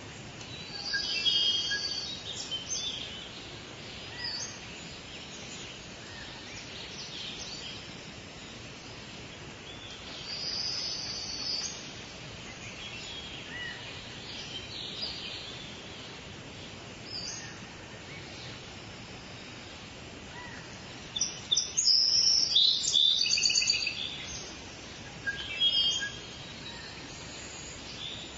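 Forest birds singing and chirping in scattered short, high phrases over a steady background hiss, with the loudest burst of song a little over two thirds of the way in.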